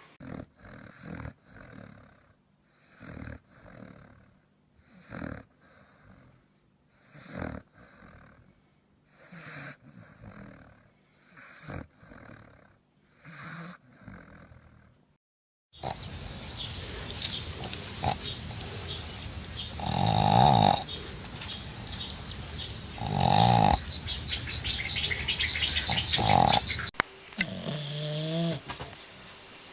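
Dogs snoring in sleep: slow, even snores about every two seconds, then after a cut a louder, rougher snoring with two strong snores, and near the end a brief wavering pitched sound.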